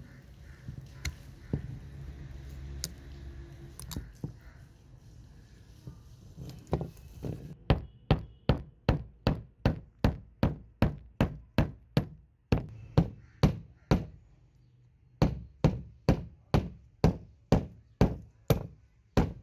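Hammer blows on a rusted pair of needle-nose pliers lying on concrete: sharp, evenly paced knocks about two or three a second, starting about seven seconds in, with a short break near the end. Before the hammering, scattered clicks and scraping as the pliers are handled.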